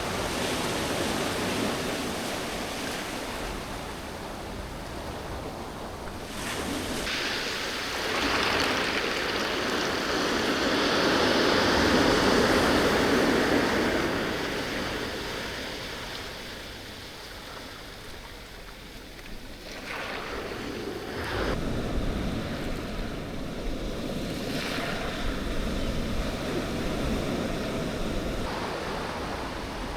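Irish Sea waves breaking and washing up a beach. The surf swells to a loud crash about a third of the way in, ebbs to its quietest past the middle, then builds again with the next breakers.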